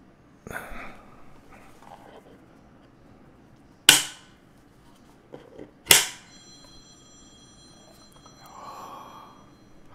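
Brass latches on a wooden Neumann TLM 103 microphone case snapped open: two sharp clicks about two seconds apart, each ringing briefly, with quieter handling noise of the case around them.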